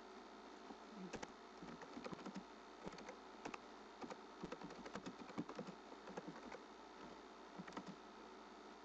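Typing on a computer keyboard: an irregular run of faint key clicks, starting about a second in.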